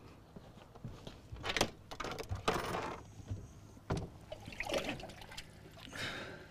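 Water splashing in a boat's livewell as a large largemouth bass is lowered in and thrashes: several irregular splashes, with a knock about four seconds in.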